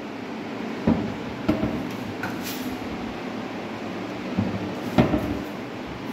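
Modular kitchen cabinets being opened and shut by hand, with sharp knocks about a second in, again half a second later, and once more near the end, over a steady background noise.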